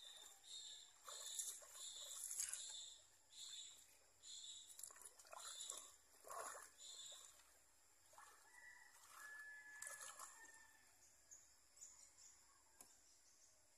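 Faint animal calls: a run of short, repeated calls about two a second, then a single longer, higher note about nine seconds in.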